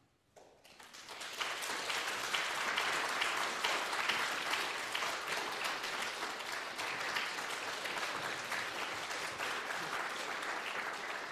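Audience applause that starts about half a second in, swells within a second to a steady level, and cuts off abruptly at the end.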